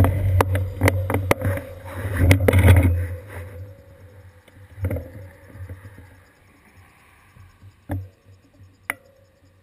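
Low rumble and rattling clicks picked up by a seat-post-mounted camera while the bicycle rolls, dying away about three seconds in as the bike comes to a stop. A few single sharp clicks follow.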